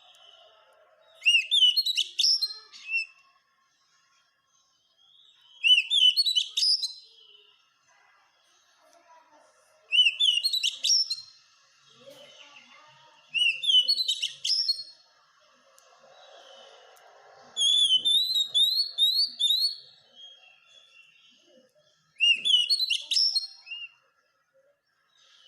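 Oriental magpie-robin (kacer) singing: loud phrases of quick, rising whistled notes, each one to two seconds long, repeated about every four seconds, with faint softer chirps between phrases.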